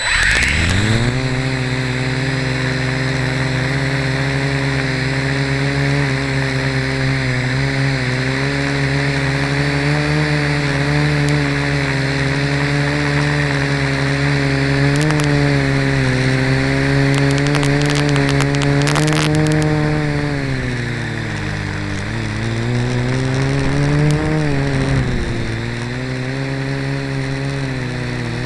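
Blade mQX micro quadcopter's four motors and propellers spooling up for takeoff and then whining steadily in flight, heard loud and close from the camera mounted on the quad. The pitch sags and drops about two-thirds of the way through, rises again shortly after, and settles lower near the end as the throttle changes.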